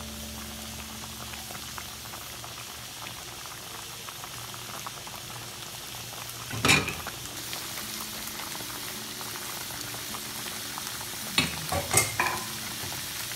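Pot of bamboo-shoot and fish soup at a rolling boil, bubbling steadily. A single sharp knock about halfway through, and three more knocks close together near the end.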